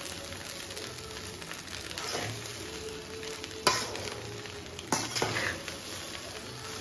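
Flat metal spatula stirring and scraping rice in a metal kadai over a gas flame, with a steady frying sizzle. The spatula clanks sharply against the pan a few times, loudest past the middle.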